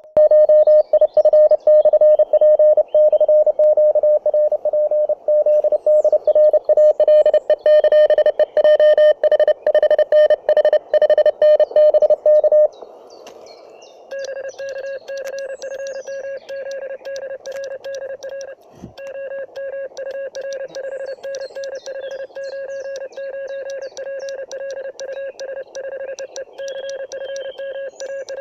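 Morse code (CW) beeps from a homemade 1 W amateur radio transceiver: a steady-pitched tone keyed rapidly on and off for about twelve seconds. After a short pause, a second, slightly lower and quieter tone keys out more Morse.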